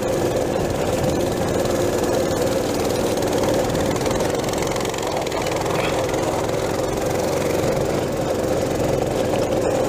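Mini bike's small engine running steadily while riding up a rocky dirt trail.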